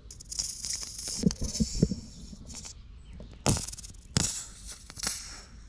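Grease pressed from a cartridge tube into a BEKA-MAX central lubrication pump's reservoir on a round baler: several bursts of hiss, the longest over the first two and a half seconds, with a few soft knocks about a second in.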